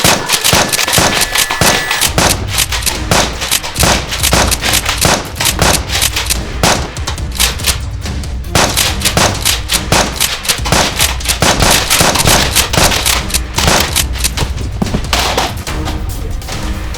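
Rapid gunfire, many shots a second in long bursts, over background music with a steady bass.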